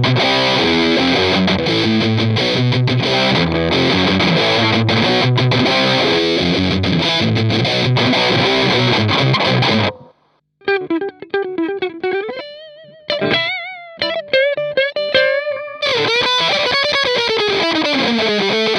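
Electric guitar played through a Boss DS-2 Turbo Distortion pedal. A dense distorted rhythm riff cuts off abruptly about ten seconds in, then gives way to single-note lead lines with vibrato, ending in a phrase whose pitch slides down and back up.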